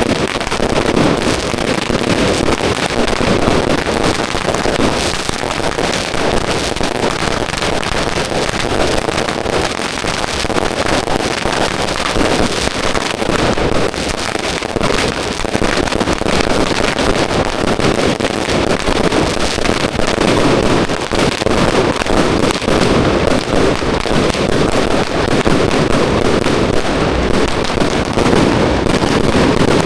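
Firecrackers going off in a dense, continuous crackle of rapid bangs, with no pause throughout.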